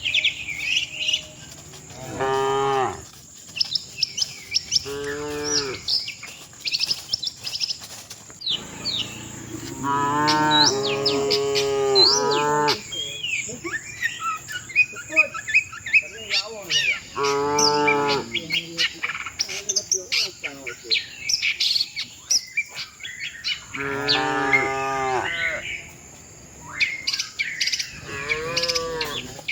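Cattle mooing repeatedly, about six moos a few seconds apart, the longest about ten seconds in. Small birds chirp throughout.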